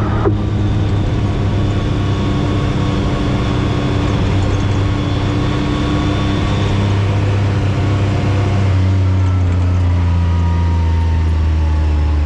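A side-by-side UTV's engine runs steadily while riding on a dirt trail. About two-thirds of the way through, its note drops lower as the machine slows, and a faint whine falls in pitch with it.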